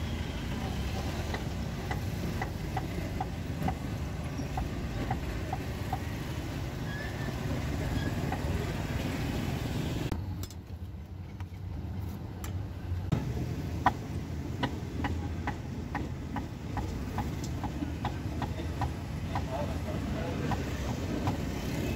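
Meat cleaver chopping roast pork on a wooden chopping block, short sharp chops about two a second, with a pause of a few seconds near the middle. A steady street-traffic rumble runs underneath.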